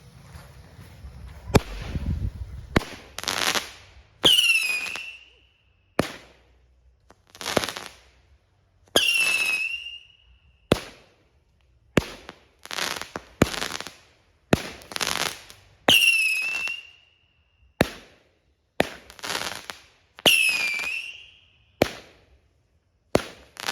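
The Anti-Tank Mine, a 16-shot 200 gram consumer firework cake, firing shot after shot about a second and a half in. It goes roughly once a second, each shot a sharp report and burst. A few shots carry a falling whistle.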